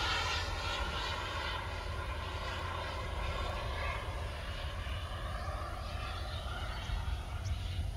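Small turbine engine of an Aerofoam T-45 model jet in flight overhead: a steady whine made of several stacked tones that slowly falls in pitch.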